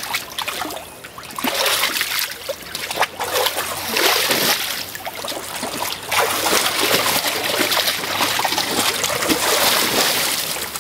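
A big dog splashing water in a kiddie pool, its paws stepping and pawing through the water in irregular spells that grow busier about halfway through.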